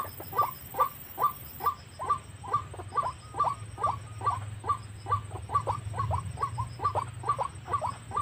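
White-breasted waterhen calls: a long, monotonous run of short notes, each falling sharply in pitch, at about three a second.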